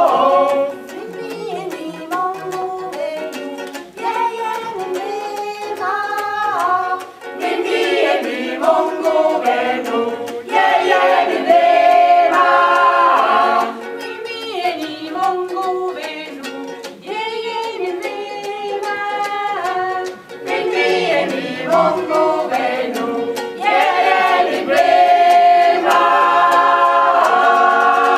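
A small choir singing an African song in several parts, the voices swelling and falling together.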